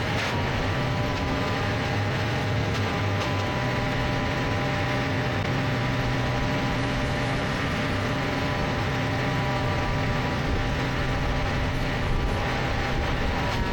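Machine engine running steadily at a constant speed, with a low rumble and a steady whine.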